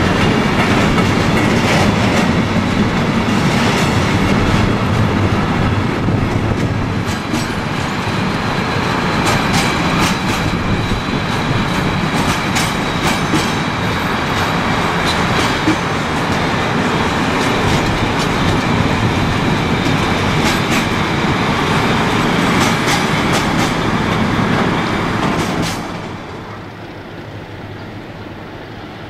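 Freight train's container and tank-container wagons rolling past close by, the wheels clicking over the rail joints in a dense, uneven run. About 26 s in the sound drops sharply to a much quieter, more distant rumble.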